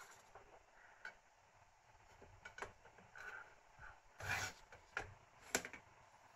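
Steel rods and aluminium linear bearing blocks handled on a wooden board: a rod sliding into its shaft holders, a few light knocks and clicks of metal on metal and wood, and a short scraping rub about four seconds in.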